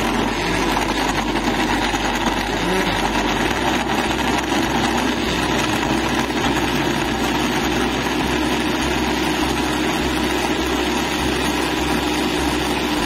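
Electric countertop blender running steadily, its motor whirring as it grinds green chillies in the jar.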